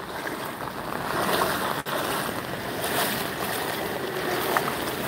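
Steady rushing, splashing noise of floodwater covering a street, with a momentary dropout a little under two seconds in.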